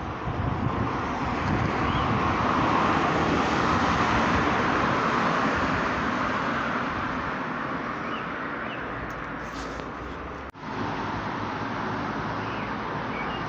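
Road traffic noise: a steady rush of passing vehicles that swells a few seconds in, then slowly fades.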